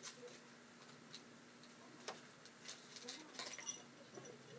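Faint, scattered clicks and crackles of a keychain's plastic packaging being handled and opened. A small cluster of clicks comes a little after three seconds in.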